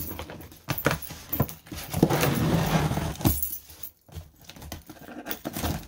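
A bunch of keys jangling as one key is dragged along the taped seam of a cardboard shipping box to slit the tape. About two seconds in there is a louder rasping scrape lasting about a second, with scattered clicks and scratches around it.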